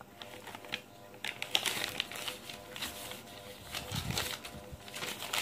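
Crepe paper crinkling and rustling as it is handled and gathered, in irregular crackles that grow busier about a second in.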